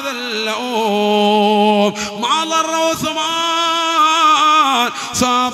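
A preacher's solo male voice singing a melodic passage of his sermon in long, drawn-out phrases. The notes are held with a slow waver in pitch. One phrase ends about two seconds in, and the second runs until shortly before the end.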